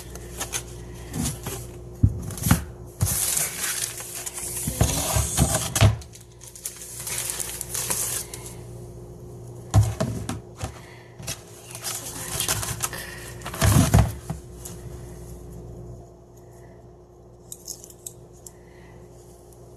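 Irregular clinks, knocks and rustling of objects being handled and rummaged through, busiest in the first two thirds and sparser near the end, over a faint steady hum.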